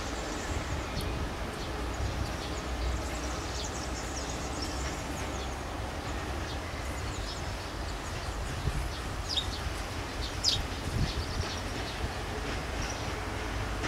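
Diesel multiple unit rumbling low and steady as it rolls slowly towards the listener over the points, with a few sharp high clicks and squeaks from the wheels and track about two thirds of the way through.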